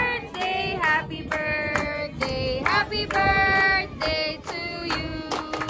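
A group of people singing a birthday song together and clapping along in time, with several sung notes held before changing pitch.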